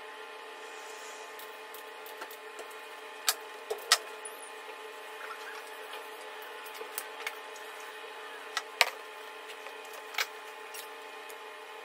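Sharp metallic clicks and clinks of pistons, tools and the engine block being handled, scattered over a steady hum. The loudest clicks come about three to four seconds in and again near nine seconds in.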